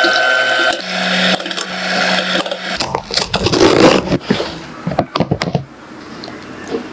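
Electric hand mixer whipping cream in a glass bowl, its motor humming steadily for about two seconds, followed by a cardboard carton being torn open and a few light clicks and rustles.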